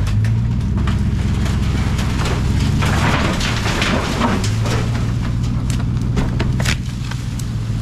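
Four-wheeler engine running steadily under load as it drags a fallen tree by a chain, with a noisy rush of branches and leaves scraping and cracking about three seconds in.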